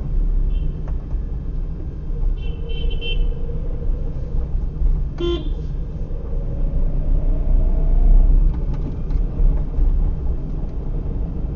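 Steady low road and engine rumble inside a moving car, with a short vehicle horn toot about five seconds in and a brief high-pitched tone a couple of seconds before it.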